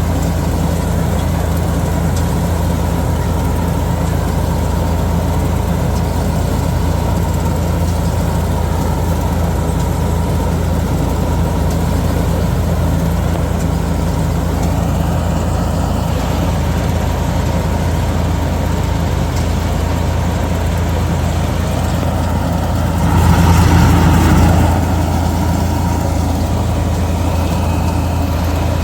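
Super Standard S50 mini combine harvester's engine running steadily, rising briefly louder for about two seconds near the end.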